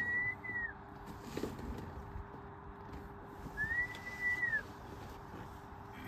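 Two clear whistled notes about four seconds apart, each lasting roughly a second: the pitch rises a little, holds, then drops off at the end. A faint steady hum runs underneath.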